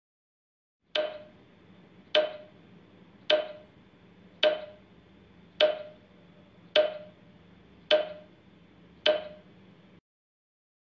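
Countdown timer ticking sound effect: eight sharp, woody ticks a little over a second apart, each with a short ringing tone, over a faint hiss that cuts off near the end.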